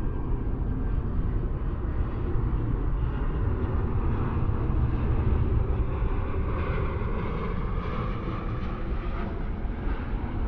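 A steady, deep rumbling noise, with a hissing mid-range layer that swells a little in the second half.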